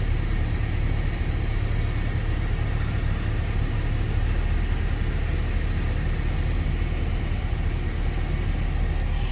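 A steady low engine rumble, as of a vehicle idling, with a faint steady whine above it.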